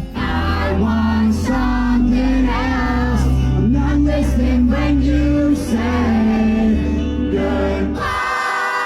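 Live rock band playing a song with sung vocals over heavy bass. About eight seconds in, the bass drops out, leaving a held chord.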